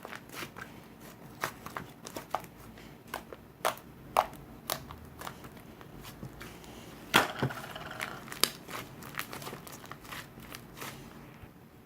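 Slime being squeezed and pressed by hand, giving irregular sharp pops and crackles, with a denser crackling squish about seven seconds in.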